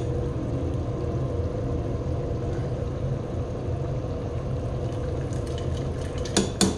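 Steel ladle stirring a steaming pot of chickpea curry over a steady low kitchen rumble, gravy pouring back off the ladle, with two or three sharp clinks of the ladle on the pot near the end.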